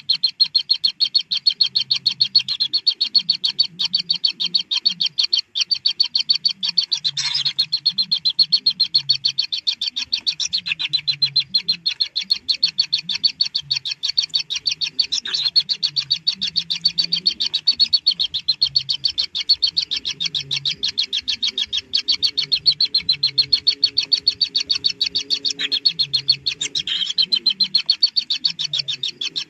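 Kingfisher nestlings begging: a rapid, unbroken train of high, clicking chirps, many a second, with fainter irregular low sounds underneath.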